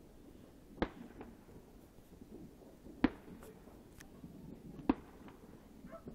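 Firework bangs going off in the distance: three sharp loud cracks about two seconds apart, with fainter pops between them.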